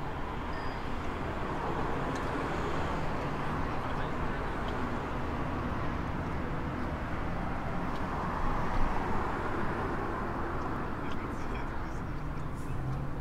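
Steady city traffic noise across a river: an even rumble of road and rail traffic that swells briefly about eight seconds in.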